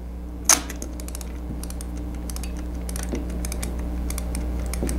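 Argus C-44 rangefinder camera being wound on: one sharper click about half a second in, then a run of small quick ratcheting clicks from the film advance as frames are wound on, over a steady low hum.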